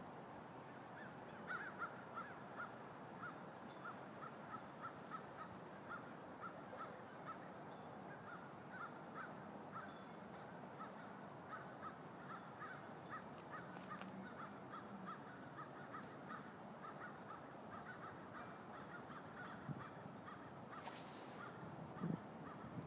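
Birds calling faintly: a long run of short calls repeating two or three times a second, with a brief hiss near the end.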